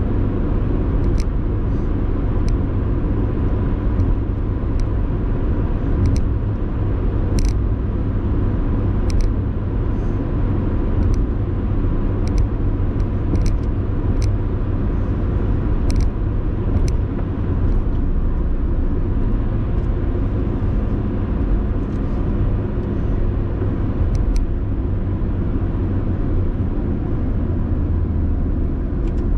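A car driving at a steady speed: continuous low road and engine rumble, with scattered sharp clicks and rattles about once a second.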